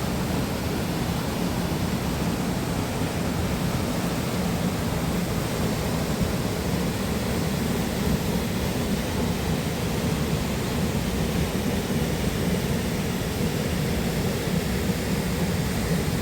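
Waterfall: falling water in a steady, even rush, heaviest in the low range, unchanging throughout.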